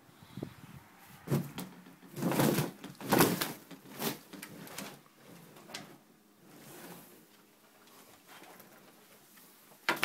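A run of short rustling and knocking noises from a phone being carried and handled close to doors, five or so in the first six seconds, then quieter.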